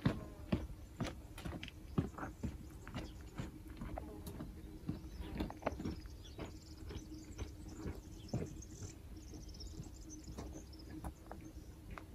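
Footsteps of someone walking on rocky ground at a steady pace, about two steps a second.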